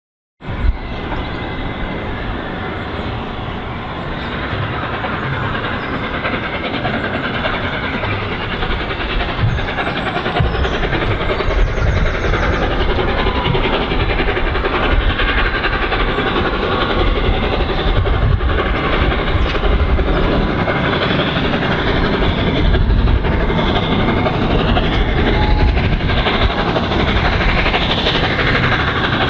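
LNER A3 Pacific steam locomotive 60103 Flying Scotsman approaching at the head of its train, a steady rushing sound that grows gradually louder.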